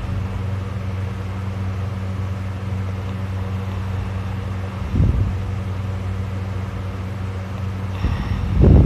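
A person snoring loudly in deep sleep: a short low snore about five seconds in and a longer one near the end, over a steady low hum.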